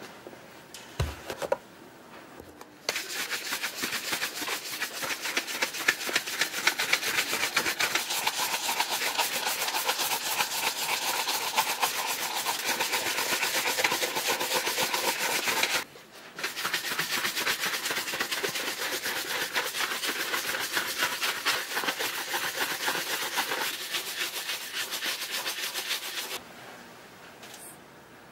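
A shoe brush scrubbed rapidly back and forth over shell-cordovan leather, in two long spells with a short pause about halfway. This is the brushing that raises the shine after slicking with a deer bone. A light knock comes about a second in.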